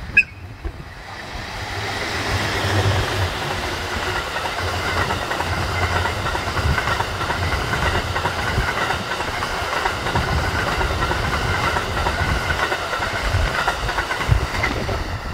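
Cassiopeia sleeper train, a red electric locomotive hauling E26 series coaches, passing close by: a steady rumble with the clickety-clack of wheels over rail joints, building up as the locomotive nears and easing off near the end. A short sharp sound comes right at the start.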